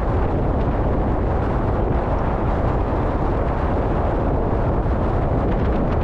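Strong sea wind buffeting the microphone in a steady low rumble, over the rush of rough waves on a rocky shore.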